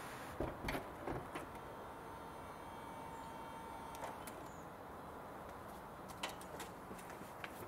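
Mercedes CLK W208 cabriolet's electro-hydraulic soft top in motion: several clicks and clunks from the top's mechanism, then a faint steady whine from the soft-top pump for a few seconds as the storage lid lifts, with a few more knocks near the end.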